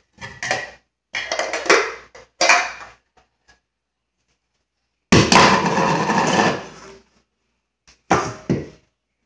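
Dishes and utensils clattering against each other as a dishwasher is unloaded, in several short bursts with a longer clatter of about two seconds past the middle.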